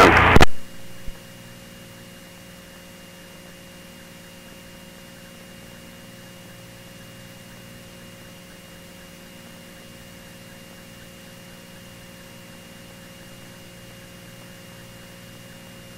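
Steady electrical hum and hiss on the aircraft's intercom and radio audio feed, with several fixed tones and no rise or fall. A radio transmission cuts off about half a second in.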